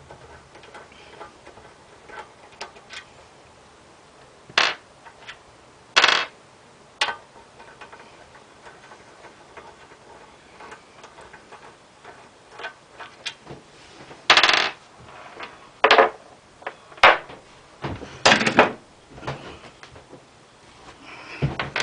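Metal tools and small engine parts from a Predator 212 small-engine head clinking and rattling as they are handled during disassembly. Many light clicks, with several louder sharp clanks.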